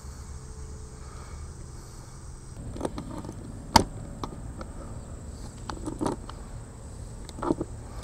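Clicks and knocks of handling as locking pliers are clamped on the brass pipe fitting and the plastic RV city-water inlet is turned tight on its threads. The loudest is one sharp snap about four seconds in, over a low steady background hum.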